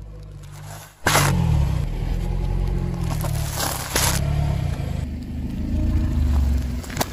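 A car's engine idling with a low rumble as its tyre rolls slowly over a packet of instant noodles, a pack of Oreo biscuits and a pomegranate, crushing them. There are sharp crackles of crushed packets and dry food about a second in and again near four seconds, and snapping clicks near the end.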